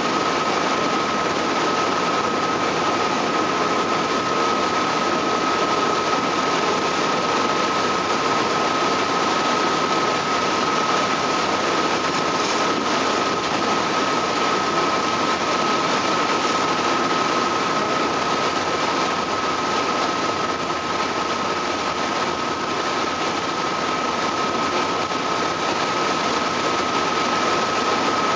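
A ferry's engines running steadily under way, a constant drone with a steady high whine over the churn of the wake.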